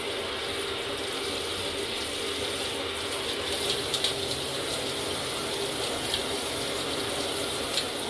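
Kitchen tap spraying steadily into a stainless steel sink, with a parrot bathing in the stream.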